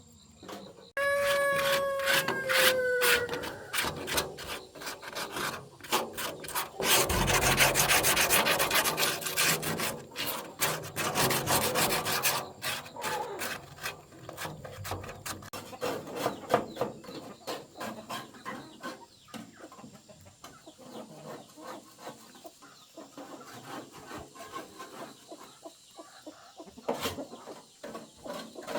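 Dense, rapid rasping scrapes, loudest around the middle, with a rooster crowing once about a second in.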